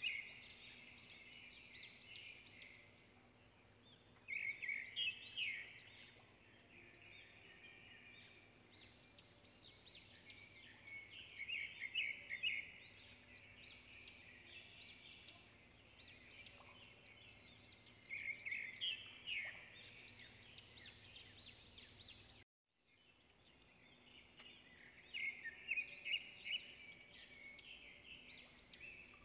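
Small birds chirping and twittering in rapid bursts of a few seconds each, fairly faint, over a faint low steady hum. The sound cuts out for a moment about two-thirds of the way through, then the chirping resumes.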